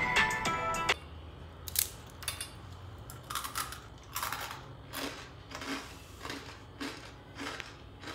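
Someone crunching a crisp deep-fried savoury snack, about nine dry, crackly crunches at an uneven pace. The crispness of the freshly fried snack is shown by its crunch. Background music cuts off about a second in.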